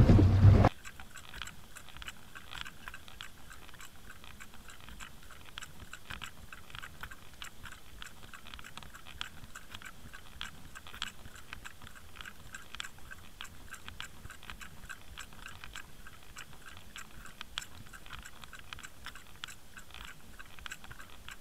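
Audio from an underwater camera towed behind a trolling boat: a faint steady water hiss with many small, irregular crackles and clicks. Boat engine and wind noise cut off suddenly under a second in.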